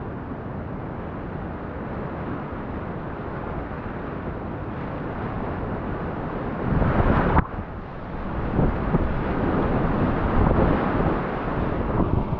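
Whitewater rapids rushing and splashing around a whitewater kayak running the current. About seven seconds in, the water swells into a loud splash and the sound cuts out for a moment. It then comes back rougher, with heavier splashes of waves and paddle strokes.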